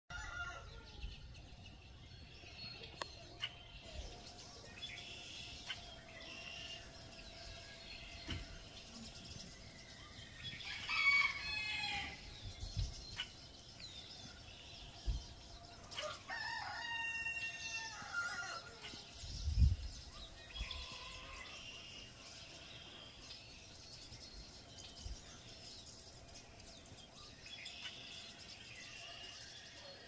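Roosters crow twice, about a third of the way in and again a little past halfway, over songbirds chirping and singing throughout. A few low thumps come through; the loudest follows just after the second crow.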